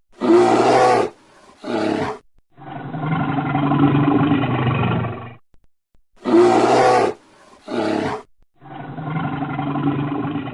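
Big cat roaring: a loud roar of about a second and a shorter one, then a longer roar of about three seconds. The same sequence repeats about halfway through.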